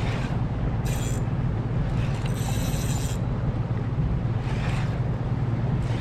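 Boat motor running steadily with a low hum while the boat follows a hooked fish, with two brief high hisses over it.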